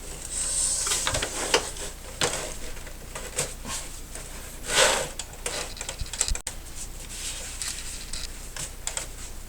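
Handling noise from fitting monitor cables and plastic parts by hand: scattered small clicks and knocks, with a rustling swish in the first second and a louder rustle about five seconds in.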